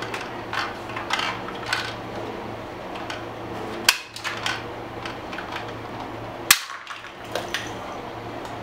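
Plastic toy assault rifle being handled, its parts giving a run of light clicks and knocks, with two sharper, louder clicks about four and six and a half seconds in, over a low steady hum.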